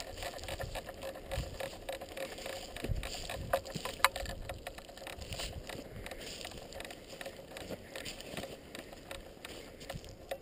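Scattered light clicks and rattling handling noise, with one sharper click about four seconds in.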